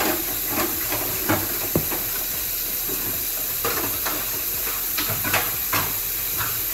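Hands kneading and squishing soft gingerbread dough in a plastic mixing bowl, then rubbing sticky dough off the palms, heard as scattered soft squelches and rubs. A steady hiss runs underneath.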